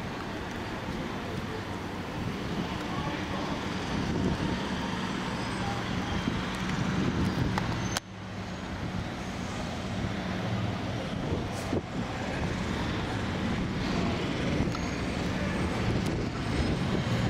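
Steady rumble and hiss with a steady low hum underneath, dropping out briefly at a cut about eight seconds in.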